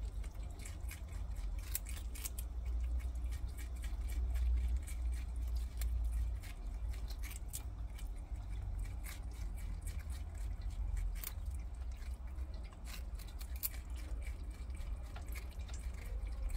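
Prairie dogs chewing pieces of kabocha squash: quick, irregular little crunchy clicks of nibbling. A steady low hum sits underneath.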